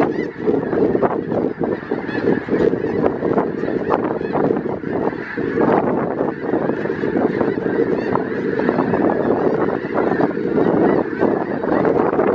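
A flock of thousands of snow geese calling, a dense, continuous chorus of overlapping honks.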